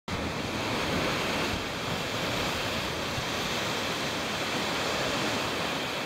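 Steady rush of flowing water that starts abruptly and fades out near the end.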